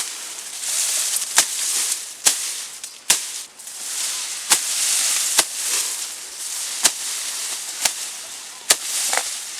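Machete chopping through brush and weeds: sharp blade strikes about once a second, with leaves and stems rustling between them.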